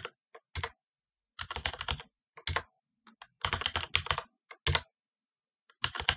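Computer keyboard typing in bursts of quick keystrokes, with single strokes and gaps of silence between the bursts.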